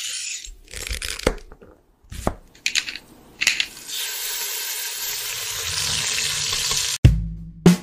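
Intro sound effects of an animated logo reveal: a run of short whooshes and swishes, then a long hiss that builds slightly. About seven seconds in it cuts to a deep bass-drum hit as drum music begins.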